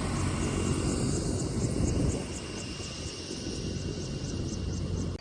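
A steady engine drone with a low hum and faint, evenly spaced high ticks, easing in level about two seconds in.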